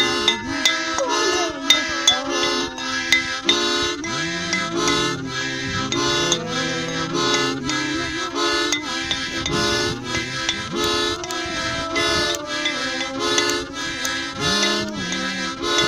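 Harmonica played in short rhythmic chords with bent notes, with sharp clicks throughout.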